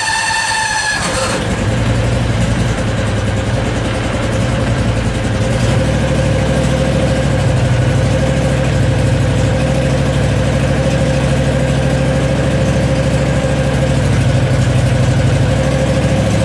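A high whine cuts off about a second in as a Predator 670cc V-twin engine catches on a cold start without choke, then runs steadily. It is fed by an electric fuel pump with a return line to the tank, and by the owner's account it is running without its usual pulsing or surging.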